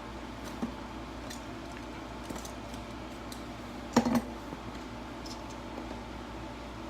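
A cardboard box and plastic packaging being handled and opened: a few light clicks and taps, with a sharper clack about four seconds in, over a steady low hum.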